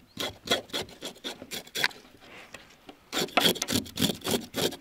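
Knife scraping scales off freshly caught fish in quick, rasping strokes. The strokes ease off about two seconds in, then resume faster and denser about a second later.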